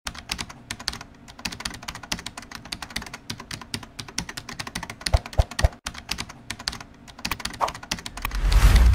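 Rapid, irregular clicking, like typing, throughout. In the last second a whoosh sound effect swells up with a low rumble.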